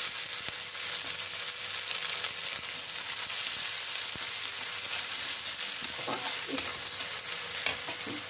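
Chopped onions sizzling in hot oil with cumin seeds in a metal kadai, stirred with a spatula. A steady high hiss, with a few faint clicks and short scrapes in the second half.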